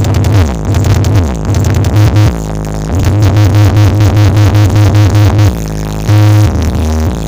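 Electronic dance music played very loud through a carnival sound system, with a heavy bass that slides downward in the first second or so and then pulses in a fast, even beat.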